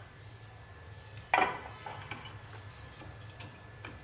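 Kitchenware clinking: one sharp knock of a dish or utensil about a second and a half in, then a few lighter clicks. A low steady hum runs underneath.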